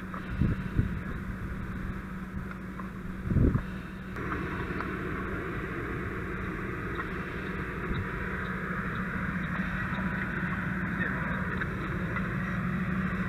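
Fireground noise at a smoking dump truck: a steady hiss over the low hum of a running engine, with a few dull thumps in the first four seconds. The hiss grows stronger about four seconds in.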